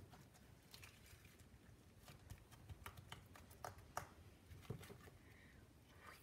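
Faint, irregular little clicks and crackles of slime being pressed and kneaded by hand on a countertop.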